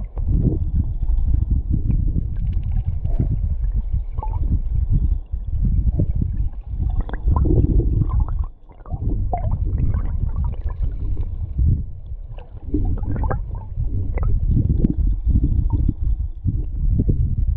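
Flowing river water heard through a submerged camera's housing: a muffled low rumble and gurgle, uneven in strength, with scattered short knocks and pops.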